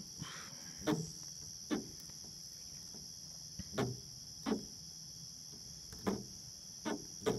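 Steady night chorus of crickets. Over it come about seven short, low knocks at irregular intervals while a hooked armado catfish is handled and unhooked.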